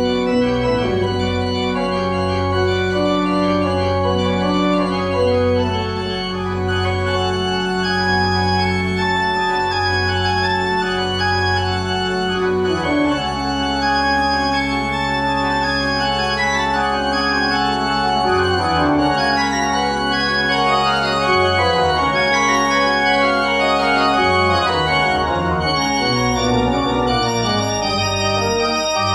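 Two-manual church organ being played: full sustained chords over a low bass note repeated about once a second, changing about halfway through to slower held chords that shift every few seconds.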